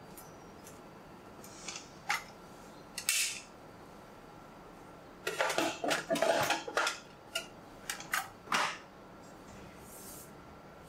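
A bread maker's metal pan and hinged lid being handled: scattered clicks and clunks, with a busy run of rattling knocks about halfway through.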